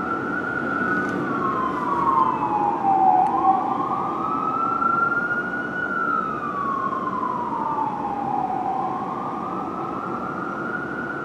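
Fire engine siren sounding a slow wail, its pitch rising and falling about every five to six seconds: the truck is running code 3 to an emergency call.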